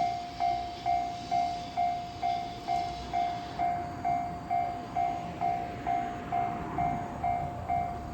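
Level-crossing warning bell ringing about twice a second, steady and even, over the rumble of the steam train rolling through the crossing. A higher hiss drops away about three and a half seconds in.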